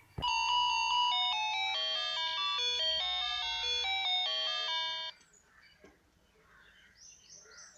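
Wireless doorbell receiver playing its electronic chime tune, a melody of clean stepped tones that stops abruptly after about five seconds. The chime sounding shows the receiver has picked up the button press. Faint high chirps repeat near the end.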